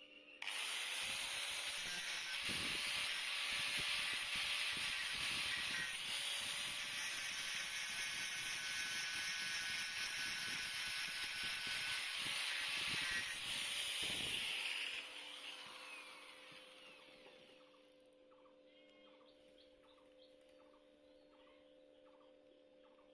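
Stick-welding arc on a 6013 electrode: it strikes suddenly about half a second in, then crackles and hisses steadily for about fourteen seconds before it breaks off and the sound fades away. A steady low hum runs underneath throughout.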